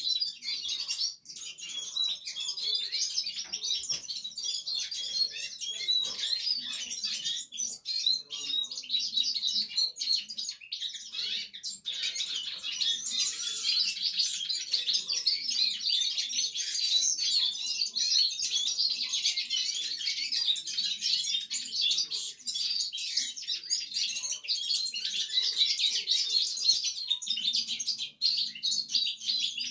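Caged canaries singing their first practice songs (распевы): a continuous stream of high twittering and chirping that never pauses.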